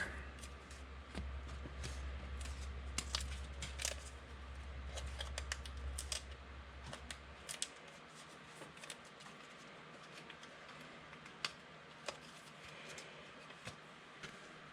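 Trading cards and pack wrappers being handled: scattered light clicks, snaps and rustles, with a low hum that stops about halfway through.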